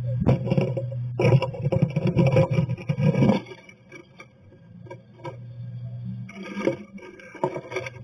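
A tree swallow scrabbling inside a cedar nest box: claws scratching on the wood and rustling the dry grass nest, loudest in the first three seconds, then scattered scratches and taps. A low steady hum runs underneath.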